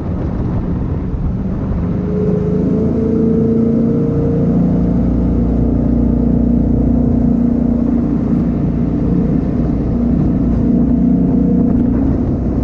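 420 hp jet boat engine running at speed, its pitch climbing about two seconds in as the boat accelerates, then holding steady.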